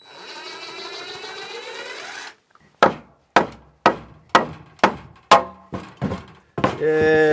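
About two seconds of steady rasping noise, then a run of about eight sharp hammer blows on wood framing, knocking loose a piece of 2x4 blocking. A short cheer comes near the end.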